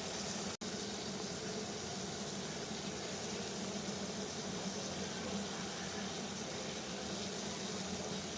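Water boiling at a steady rolling boil, an even bubbling rush with a low hum underneath. The sound cuts out completely for a split second about half a second in, then carries on unchanged.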